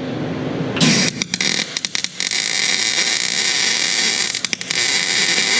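Electric welding arc crackling as a tack weld is laid, starting about a second in and running for about four and a half seconds, sputtering with short breaks in the arc near the start and again near the end. The welder is set lower than the welders want.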